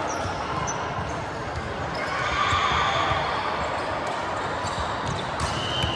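Gym sound between volleyball rallies: players' voices and chatter echoing in a large hall, with a volleyball bouncing on the hardwood floor and a few short sharp clicks and squeaks. The voices rise briefly a little after two seconds in.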